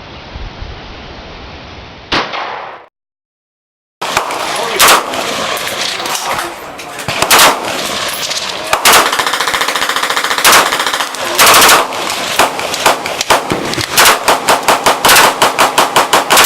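Gunfire at a shooting range: a short hissy stretch with one crack, a sudden cut, then single shots a second or two apart, building near the end into a rapid string of about three to four shots a second.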